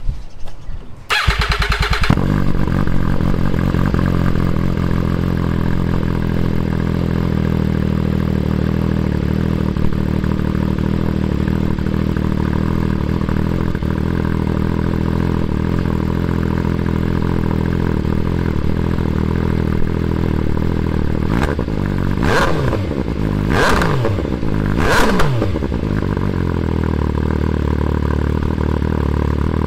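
2017 MV Agusta Dragster 800 RR's inline three-cylinder engine cold-started through a Competition Werkes slip-on exhaust. The starter cranks for about a second, the engine catches and settles into a steady idle, then is revved three times in quick succession near the end before dropping back to idle.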